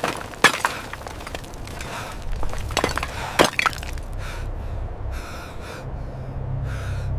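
Concrete rubble cracking and breaking: a series of sharp snaps and cracks over the first few seconds, strongest about half a second in and about three and a half seconds in. A low rumble builds underneath and grows louder near the end.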